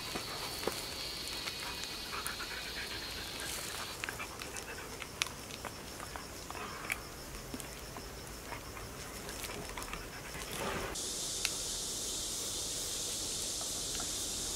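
Siberian husky panting and licking at a toothbrush smeared with toothpaste, with small wet clicks of its tongue and teeth on the brush. A steady high insect drone runs behind.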